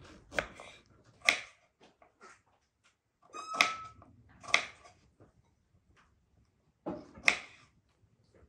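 Kitchen knife slicing through feijoa fruit and knocking on a wooden cutting board, six or so separate cuts with pauses between them. A brief high chirp sounds about a third of the way in.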